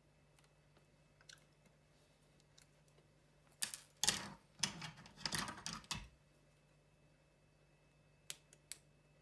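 Hand-handling of a fishing rig as a uni knot is drawn tight: a couple of seconds of short scraping and rustling of fishing line through the fingers around the middle, then a few light clicks near the end.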